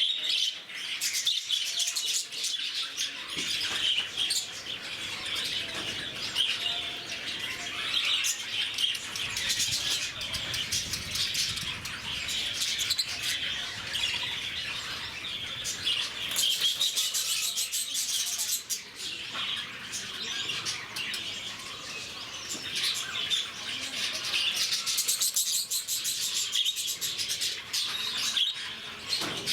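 A flock of lovebirds, small parrots, chattering with a constant overlapping mass of high-pitched chirps and squeaks.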